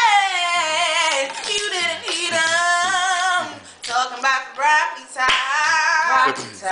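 A girl singing unaccompanied in long held phrases with a wavering pitch. There is a single sharp clap or knock about five seconds in.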